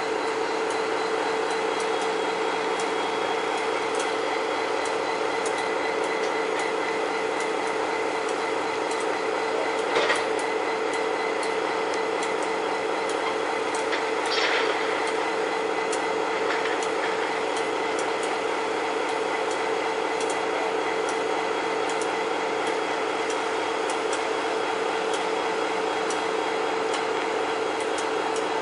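Class 59 diesel locomotive's EMD two-stroke V16 engine running steadily, a constant hum with a strong steady tone. A short click about ten seconds in and a brief higher squeak a few seconds later.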